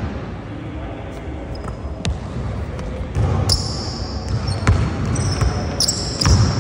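Basketball dribbled on a hardwood gym floor, a few separate bounces, with high-pitched sneaker squeaks on the court from about halfway through as the players drive to the basket.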